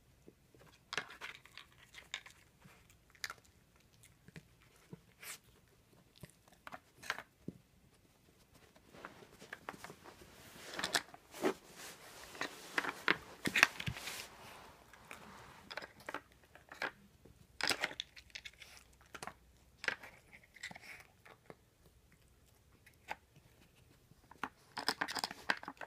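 Scattered clicks and knocks of the plastic pegs and drawers of a Nina Ottosson Dog Casino wooden puzzle board as a small dog works it, with bouts of crunching as it chews the treats it gets out, densest about ten to fourteen seconds in.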